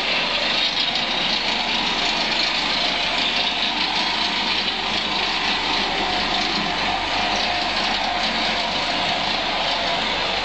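Road-construction machinery running steadily: a constant, unbroken engine noise.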